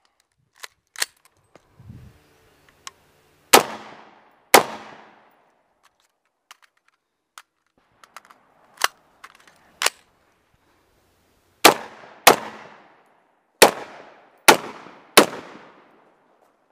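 AR-15 rifle firing single shots, each with a short echo: two about a second apart, then after a pause of several seconds five more in quick succession. Fainter knocks fall between the shots.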